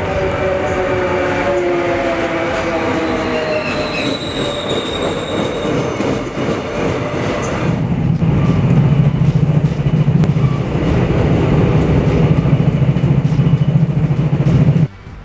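A train passing. For the first half, several pitched tones glide slowly downward. About halfway, a loud, low rumble of the cars going by takes over, and it cuts off suddenly near the end.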